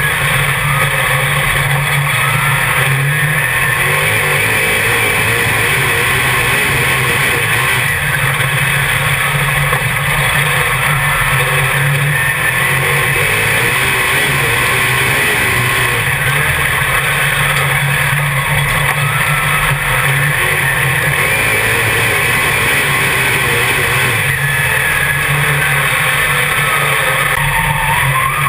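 A Dirt Modified race car's V8 engine running hard at race speed, loud and steady, heard from inside the cockpit.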